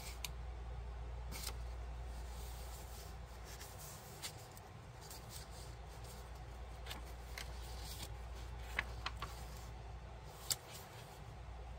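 Pages and tucked cards of a thick handmade paper journal being handled and turned: soft rustles and light taps of paper, with two sharper ticks near the end. A low steady hum runs underneath.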